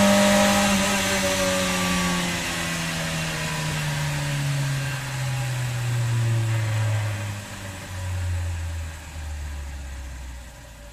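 A motor-like drone that slowly falls in pitch and fades over about ten seconds, like a motor winding down.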